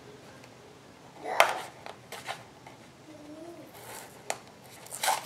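Plastic blister pack and cardboard packaging of a new Sylvania headlight bulb being handled and pried open: scattered crinkles and clicks, the loudest about a second and a half in.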